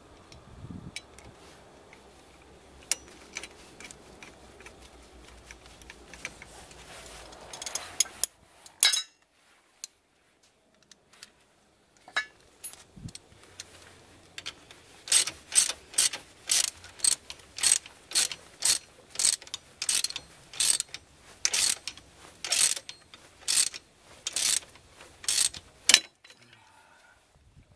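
Socket ratchet wrench clicking as it turns the bolts behind a rear hub and drum-brake backing plate. Sparse clicks at first, then after a short pause a steady run of loud ratchet strokes, about two a second, in the second half.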